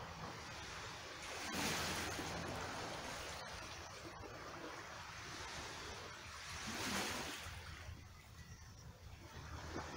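Small waves washing onto a rocky cobble shore, swelling twice, about a second and a half in and again about five seconds later, over the steady wash and trickle of a rock pool.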